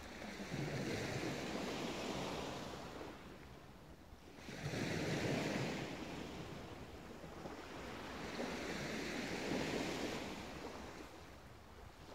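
Small sea waves breaking and washing up a sandy beach: three swells of surf about four seconds apart, each rising and fading away, the second coming in most suddenly and loudest.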